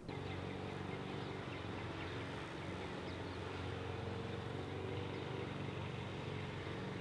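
A car driving: a steady engine hum with road noise, starting abruptly and cutting off suddenly at the end.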